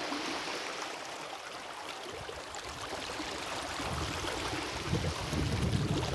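Shallow muddy water rushing over beach sand in a small runoff channel, a steady even rush, with low irregular rumbling that grows louder from about four seconds in.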